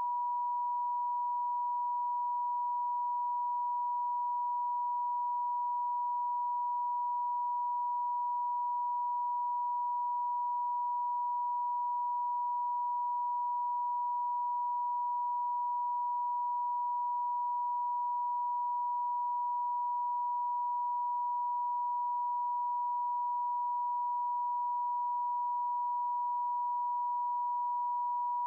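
A pure electronic sine tone held at one steady pitch, unchanging and with no other sound: a computer-generated Rife frequency tone.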